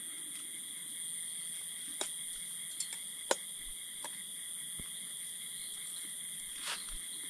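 Insect chorus with steady high-pitched trilling, and about five sharp clicks scattered through it, the loudest about three seconds in.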